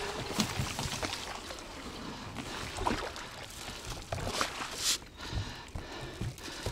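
Water splashing and sloshing around a small boat, with irregular knocks and clicks from handling.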